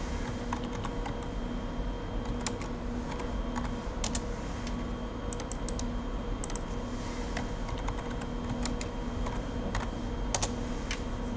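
Typing on a computer keyboard: irregular, scattered keystrokes, likely a name being entered for a component, over a steady low electrical hum.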